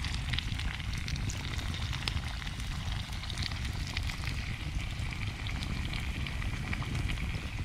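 Wood campfire crackling: many small irregular pops and snaps over a steady hiss.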